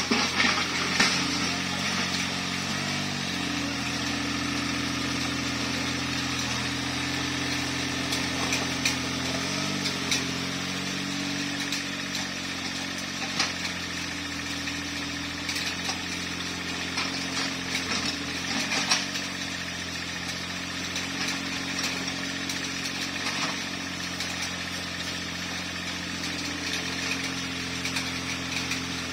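Mitsubishi MM30 mini excavator's diesel engine running steadily as the machine works, its pitch shifting slightly a few times, with scattered sharp clanks.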